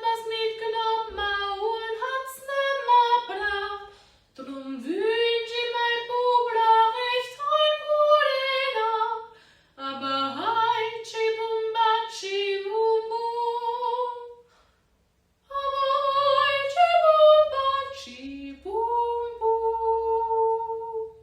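A woman singing in four long phrases, each opening with a rising slide into long held notes, with short breaks between phrases and a pause of about a second before the last.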